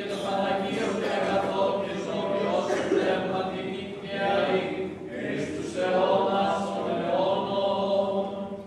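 Orthodox liturgical chant sung by a choir of voices without instruments, in long held phrases with short breaks between them.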